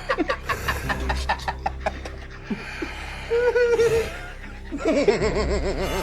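Quick, rhythmic bursts of laughter, followed by a warbling tone a little after three seconds in and a longer wavering, vibrato-like tone near the end.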